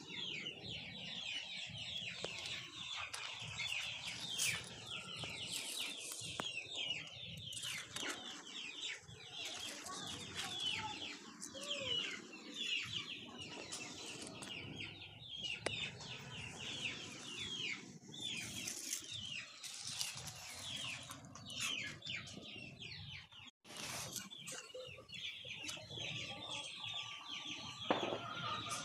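Chickens clucking over a constant, rapid high twittering of small birds. The sound cuts out for an instant about two-thirds of the way through.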